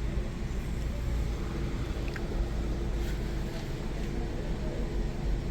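Toyota Corolla's four-cylinder petrol engine idling with a steady low rumble while misfiring, which the mechanic takes for a failing ignition coil or fuel injector.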